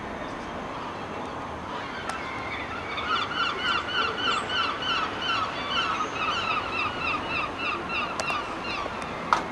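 A flock of geese honking, a rapid run of overlapping calls about three a second that starts about two seconds in and dies away near the end, over steady background noise. A single sharp click just before the end.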